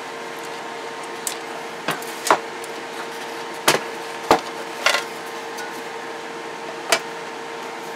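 Metal cover and chassis of a Galaxy CB radio being handled on a workbench: about seven short, sharp metal clicks and knocks at irregular intervals, over a steady background hum.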